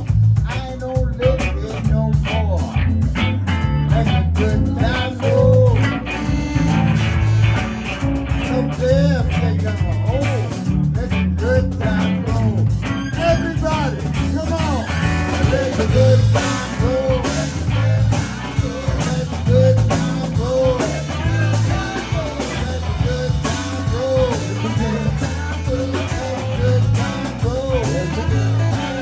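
Live blues band playing: a guitar lead with repeated bent notes over bass and drums.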